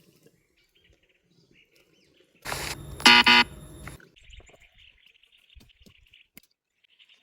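Small birds chirping faintly, broken about two and a half seconds in by one loud pitched call lasting about a second and a half, loudest near its end.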